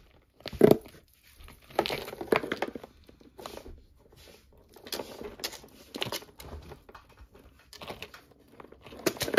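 Costume jewelry and a plastic bag being handled: crinkling plastic and short clicks and rattles of beads and chains as tangled necklaces are worked apart, with a sharp knock about a second in.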